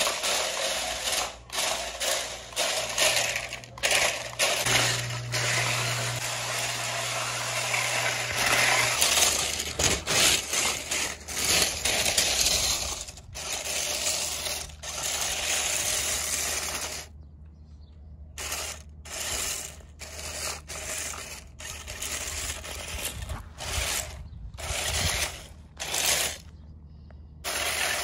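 Toy remote-control stunt car with mecanum wheels driving and spinning over pea gravel: its plastic wheel rollers crunch and scatter the stones in a dense rattle. The rattle starts and stops in short spurts, more choppy in the second half.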